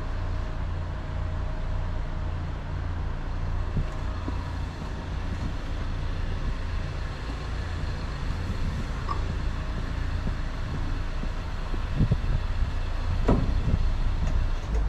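Steady low rumble of road traffic, with two louder thumps near the end.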